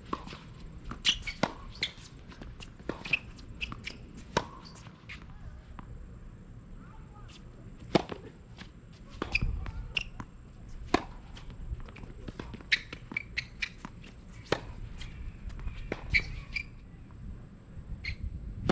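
Tennis rally on an outdoor hard court: sharp, irregular pops of rackets striking the ball and the ball bouncing on the court, roughly one every second or so, with footsteps and shoe scuffs between them.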